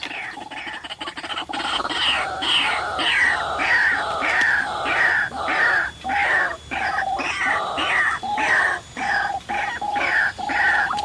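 White-breasted waterhen calling, a fast, even run of repeated notes, each falling in pitch, about two a second, starting about two seconds in.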